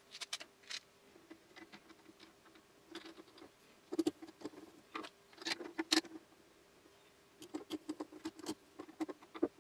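Small handling noises: light clicks and taps of a screwdriver and small screws against a 3D-printed plastic carriage, coming in irregular clusters, loudest about four to six seconds in, over a faint steady hum.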